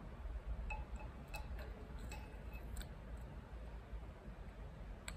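A few faint metallic ticks and clicks as a thin bent steel rod is worked down through the anchor hole of a lift column's steel base plate, tapping against the plate and concrete while probing the slab's thickness, over a low steady hum.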